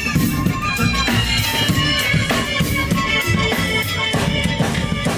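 Live band music with a steady drum-kit beat under sustained instrument notes.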